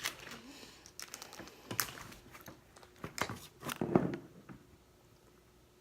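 Irregular clicks and crinkles of a mukbang seafood boil being handled at the table, loudest about four seconds in.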